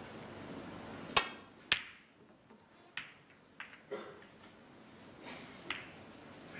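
Snooker balls clicking during a shot: the cue striking the cue ball and the cue ball hitting the reds give two sharp clicks about a second in, then several fainter clicks follow as the balls knock together and come off the cushions.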